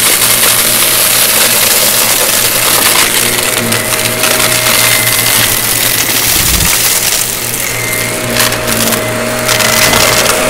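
Vacuum cleaner running with a steady motor whine, sucking up crunchy debris that crackles through it, with a cluster of sharper crackles near the end.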